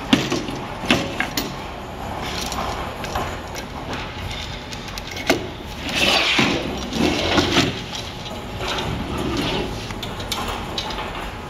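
Handling noise from setting up a retractable roll-up banner stand: sharp clicks and knocks as the base's legs are turned out and the support pole is fitted, then a stretch of sliding and rustling from the pole and banner.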